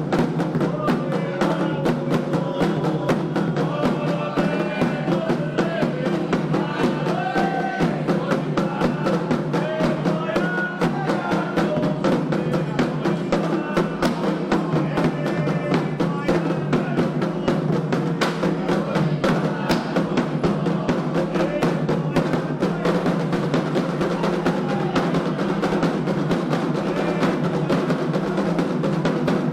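Candomblé ceremonial drumming: hand drums played in a fast, dense, unbroken rhythm, with voices singing along during the first half.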